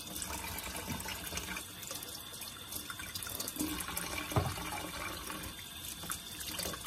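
Kitchen tap running into a sink while things are rinsed under it, with a soft knock about a second in and a sharper one a little past four seconds in.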